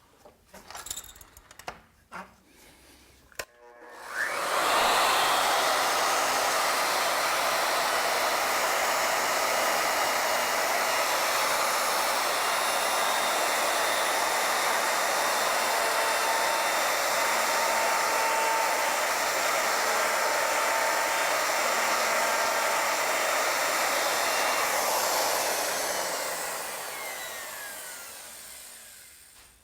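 A few light clicks and knocks, then a router motor starts about four seconds in and runs steadily while its 1-inch rope molding bit cuts a groove around the circumference of the turned wooden leg to tie off the rope spiral. Near the end the router is switched off and winds down, its pitch falling.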